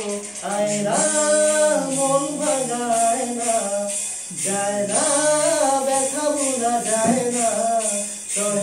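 A man singing solo, a slow melodic line of long held notes that bend and waver, with short breaths between phrases.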